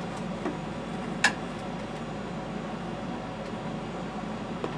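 Steady low background hum, with one sharp click about a second in.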